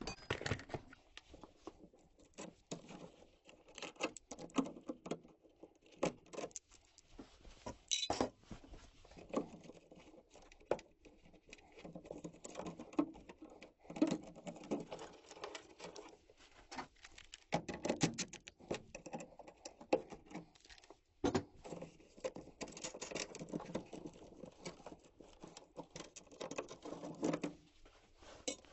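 Irregular clicks, taps and scrapes of hand work on a gas furnace, as tools and small metal parts are handled against its sheet-metal cabinet.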